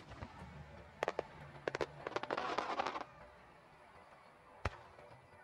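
Aerial fireworks going off: a few sharp bangs about a second in, then about a second of dense crackling, and one lone bang near the end.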